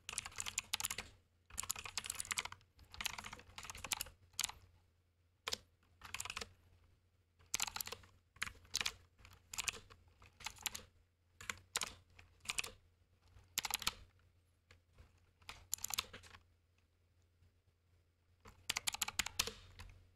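Typing on a computer keyboard: bursts of quick keystrokes separated by short pauses, with a gap of about two seconds near the end before a fast run of keys.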